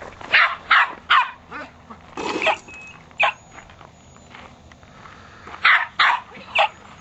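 Dog barking in short, sharp barks: three quick barks, then a longer one, a single bark, and three more near the end.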